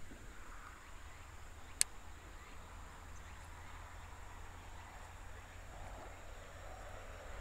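Quiet outdoor ambience: a faint steady high chirring typical of insects in the bankside grass over a low steady rumble, with a single sharp click about two seconds in.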